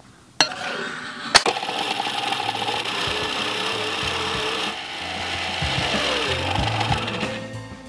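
Electric mixer beating icing sugar into a thick pink sugar paste, a steady whirring and rubbing that starts about half a second in, with a sharp click shortly after.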